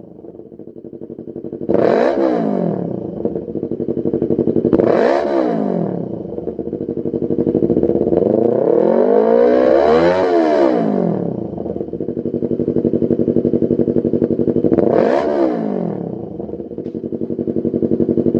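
Yamaha YZF-R3's 321 cc parallel-twin engine through a Lextek CP8C full aftermarket exhaust with a carbon-fibre silencer, idling and revved four times. Quick blips come about two, five and fifteen seconds in, with a longer, slower rise and fall around ten seconds.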